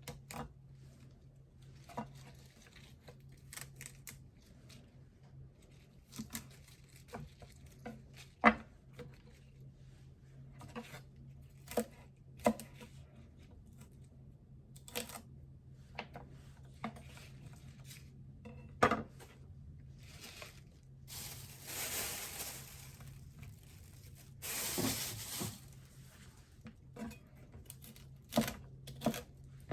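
Kitchen prep handling before chopping celery: scattered light knocks and clicks of things being picked up and set down, and two longer tearing rustles, the second a few seconds after the first, about two-thirds of the way through.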